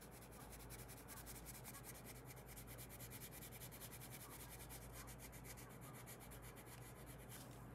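Staedtler coloured pencil shading on paper in quick, even back-and-forth strokes: a faint, rapid scratching.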